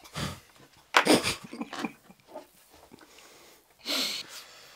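Stifled laughter after a punchline: a few breathy snorts and puffs of air, with a louder voiced burst about a second in and a hissing exhale near the end.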